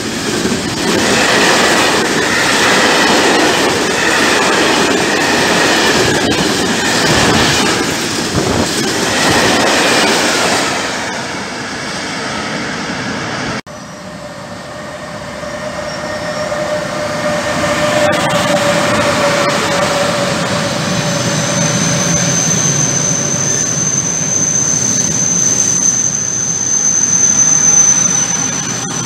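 A freight train of hopper wagons rolling past close by, its wheels clattering and rumbling on the rails. After an abrupt cut about halfway through, a second freight train hauled by an electric locomotive approaches and passes. Its closed wagons run by with a steady rumble and a thin, high squeal over the last several seconds.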